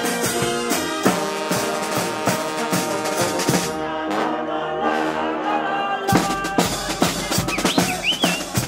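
Carnival brass band playing live, the horns holding chords. About six seconds in, the drums come in with a busy snare and bass drum beat.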